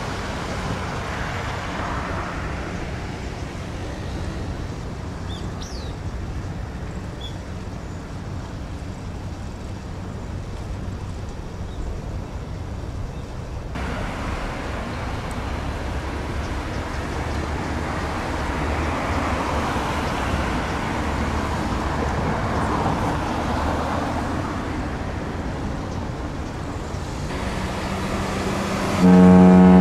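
Steady wash of road traffic, passing vehicles swelling and fading. Near the end a ship's horn starts a loud, deep, steady blast.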